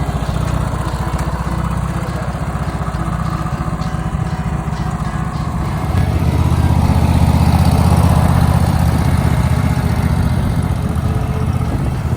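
Lawn mower's small petrol engine running steadily. It gets louder about halfway through.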